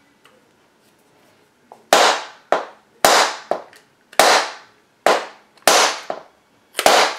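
Inertia bullet puller being struck hard against a surface over and over: seven or eight sharp knocks, about one every half second to a second, starting about two seconds in. Each blow is meant to jar loose a heavily crimped .41 Magnum bullet from its case.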